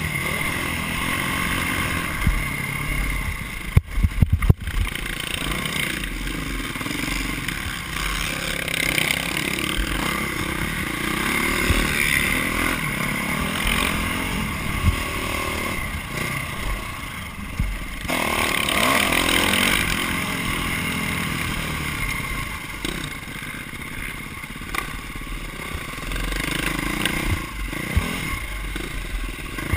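Motocross dirt bike engine running hard, heard on board, its note rising and falling as the rider accelerates and backs off over the track, with chassis clatter throughout. A burst of heavy knocks comes about four seconds in.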